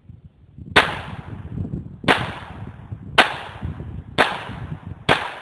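Five shots from a Smith & Wesson 2206 semi-automatic .22 pistol firing Aguila SS Sniper Subsonic 60-grain rounds, about one a second, each sharp crack trailing off in a short echo.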